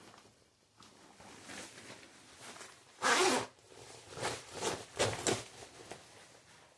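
A new black rain suit swishing and rustling as the wearer moves in it: faint rustles at first, one loud swish about three seconds in, then several shorter ones a second later.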